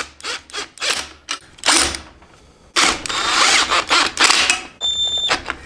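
Cordless impact driver running nuts down onto bolts: several short bursts, then two longer runs of about a second each, as the nuts are snugged up. A brief steady high whine about five seconds in.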